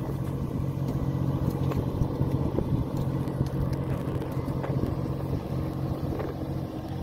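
Steady low drone of the fishing boat's machinery, an even hum with a few faint clicks scattered through it.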